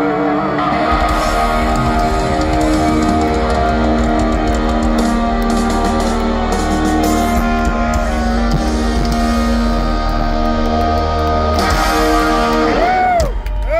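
A hard rock band playing live, with electric guitars holding long sustained notes over bass and drums. The notes waver with vibrato at the start, and near the end the guitars bend up and then fall back down.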